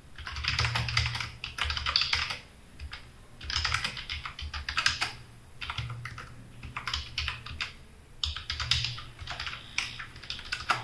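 Logitech K480 Bluetooth keyboard's round keys being typed on: quick runs of key clicks in about four bursts, with short pauses between them.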